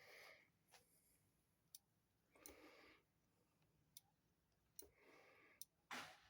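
Near silence with faint scattered clicks and a few soft, brief hisses, about two and a half seconds apart.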